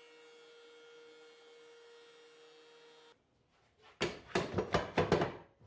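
A faint steady hum for about three seconds. After a brief silence, a quick run of knocks and clatter as sapele boards are laid onto metal bar clamps.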